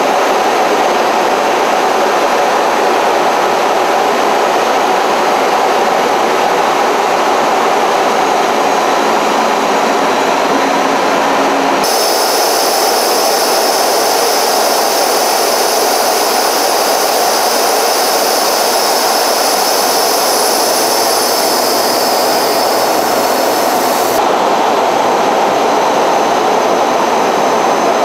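Steady aircraft engine and airflow roar heard from inside an aircraft cabin. About twelve seconds in it changes suddenly to a brighter, hissier roar with thin high whining tones, then about twelve seconds later cuts back to the lower roar.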